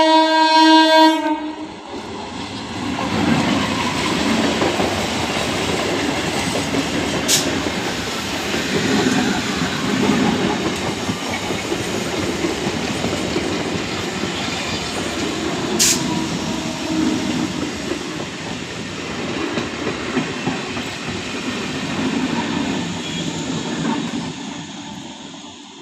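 Electric multiple unit local train sounding its horn in one loud blast at the start, then running past with a steady rumble and clickety-clack of wheels over the rails, with two sharp clicks along the way, fading near the end.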